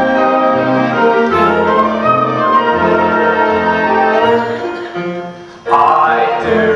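Pit orchestra playing an instrumental passage of a show tune, sustained chords over a moving bass line. It thins out and grows quieter about four and a half seconds in, then comes back in loudly at once near the end.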